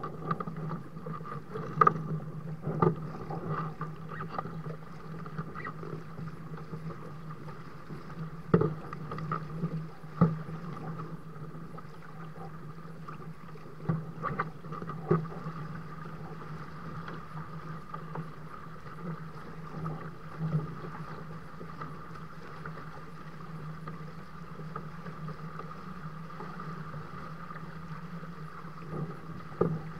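Lake water rushing and splashing against the twin hulls of a Dart 15 Sting sailing catamaran under way, with a steady low hum underneath. Now and then a wave slaps sharply against a hull, several times in the first twenty seconds.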